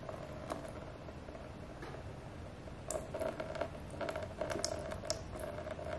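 Contaminated fuel trickling in a thin stream from a neglected fuel filter housing into a plastic drain tray. Faint patters and small splashes pick up from about three seconds in.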